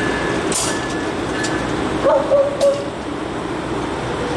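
Amtrak Capitol Corridor passenger train, led by a Siemens SC-44 Charger diesel locomotive, arriving at the station: a steady rumble, with a short hiss about half a second in.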